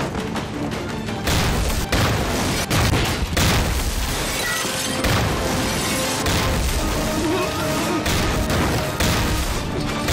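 Action-film battle soundtrack: dramatic music over repeated booms and gunfire, hitting every second or two.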